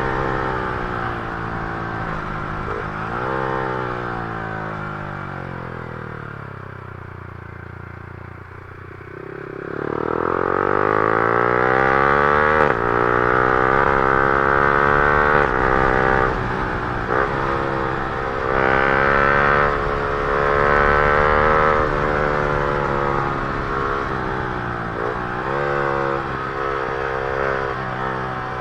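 Yamaha R15 M's single-cylinder engine through an Akrapovic R1 full-system exhaust, ridden hard. The revs fall away for several seconds as the bike slows, then climb sharply about a third of the way in and rise and drop over and over through quick gear changes.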